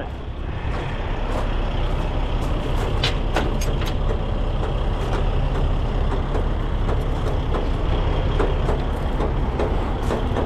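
Heavy diesel tow truck engine running steadily at idle, with its power take-off engaged for the wrecker hydraulics. A few short sharp clicks come about three seconds in.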